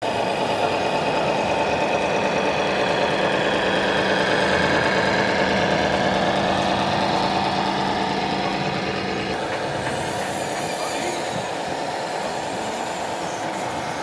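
Engine sound module of a radio-controlled scale truck playing a steady diesel truck engine note as the model drives. The note eases off a little after about nine seconds.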